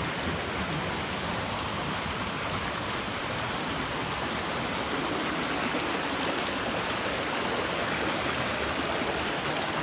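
Water from a natural spring running out of rock, a steady even rush of flowing and splashing water.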